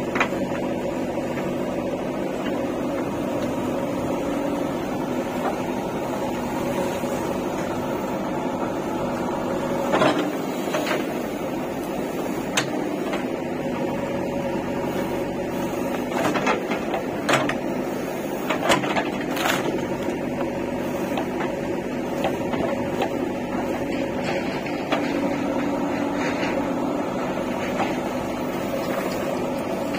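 JCB 3DX backhoe loader's diesel engine running steadily as the backhoe works, with sharp knocks and scrapes of the steel bucket biting into stony soil, clustered in the middle stretch.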